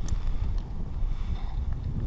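Wind buffeting the camera's microphone: an uneven low rumble that rises and falls with the gusts.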